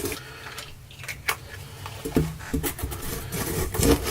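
Handling noise from camera gear being moved about: a few light clicks and knocks with some scraping.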